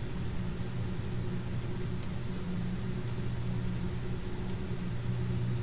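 Steady low hum of background room noise, with a few faint short clicks.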